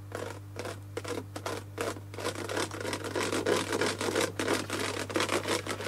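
Irregular scratching and crackling, like material being crinkled or rubbed close to a microphone, growing denser and louder, over a steady low electrical hum.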